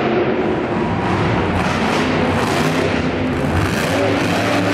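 Monster truck engine running loud under throttle as the truck drives and wheelies across the dirt, a steady, dense roar.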